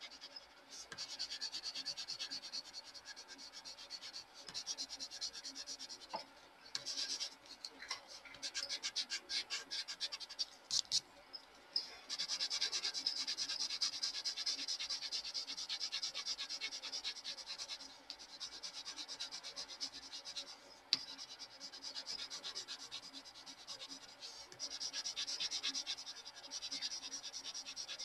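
Prismacolor colored pencil scratching back and forth on smooth Bristol paper as an area is shaded in, in stretches of quick, rapid strokes broken by short pauses. A single sharp click about three quarters of the way through.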